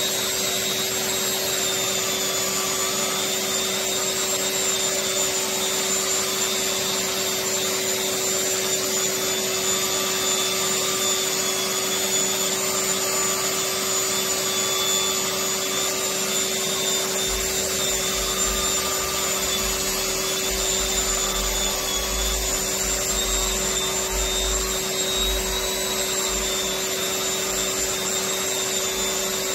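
Long-handled electric drywall sander running steadily with a constant motor whine and hum, its spinning disc grinding against a textured acoustic ceiling. A low rumble comes and goes in the second half.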